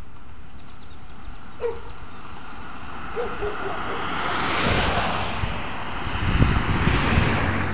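Two cars driving past one after the other on an asphalt street. The tyre and engine noise of the first swells to a peak about halfway through, and the second passes with a louder low rumble near the end.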